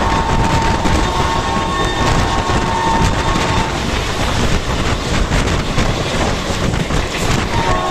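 Passenger train behind a WDP3A diesel locomotive running along the track: a loud, steady rumble and rattle of wheels on rails. A thin steady whine runs through the first few seconds and returns near the end.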